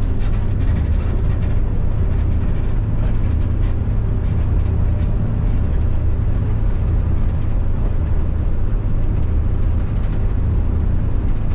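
Tour bus running along the road: a steady, deep engine and road noise with no breaks or changes.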